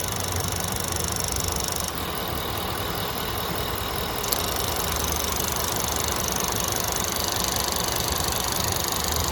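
Ford 5.0 V8 idling steadily, with the rapid ticking of its EVAP canister purge valve. The owner is unsure why the valve ticks and whether it needs replacing; the truck also logs misfires and codes P2196, P2198 and P1450.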